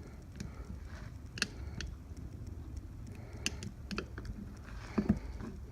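Scattered light metallic clicks and scrapes of a small pry tool picking at a dismantled car wheel bearing, working at the plastic holding its balls in place.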